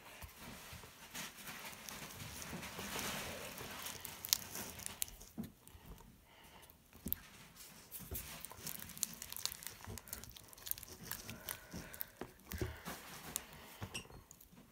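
Glue slime being stirred in a bowl just after contact-solution activator is added: irregular sticky crackling and clicking as the mixture starts to come together.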